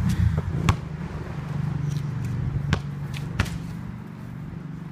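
Basketball bouncing on a concrete driveway after dropping through the hoop: four sharp thuds at uneven intervals, over a low steady hum.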